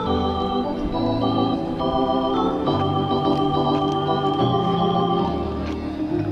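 Background music: organ playing held chords over a bass line that changes every second or so.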